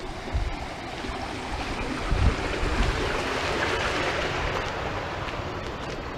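Rushing noise of a vehicle passing on the road, swelling to a peak about four seconds in and then easing, with low buffeting from wind on the microphone.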